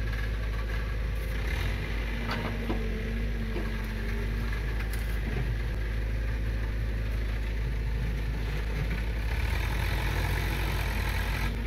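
Komatsu PC45 mini excavator's diesel engine idling steadily, with a few light knocks along the way.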